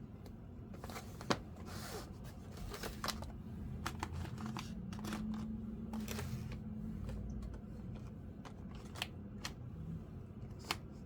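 Hands handling diecast model car packaging: rustling and crinkling with scattered sharp clicks, the loudest about a second in.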